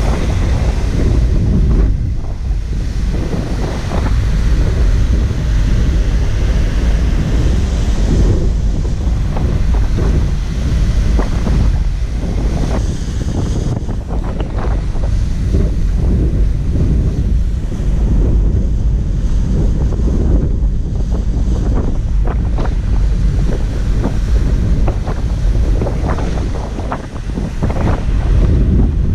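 Strong wind buffeting the camera's microphone over open sea: a loud, steady low rumble that flickers with the gusts.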